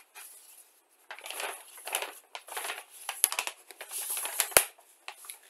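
A paper instruction leaflet being unfolded and handled, rustling and crinkling in several bursts, with one sharp tap about four and a half seconds in.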